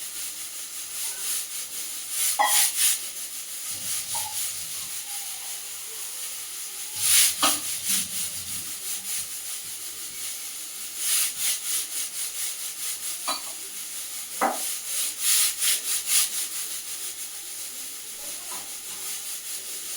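Batter being mixed by hand in a bowl: short bursts of scraping and rubbing strokes every few seconds over a steady faint hiss.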